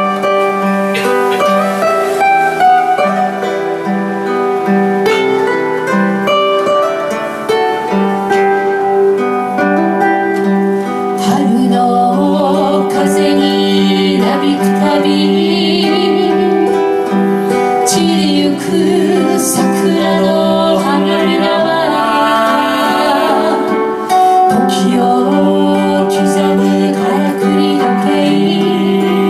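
Two acoustic guitars strummed and picked together as a duo. For about the first eleven seconds the guitars play alone; then both men begin singing together over them.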